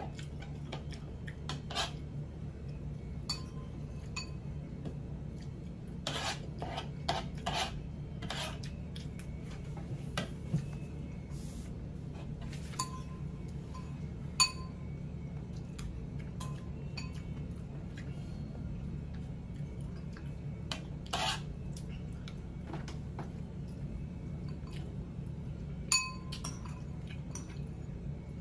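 A metal spoon clinking and scraping against a ceramic bowl and a plastic plate while eating, in irregular taps, some with a short ring. A steady low hum runs underneath.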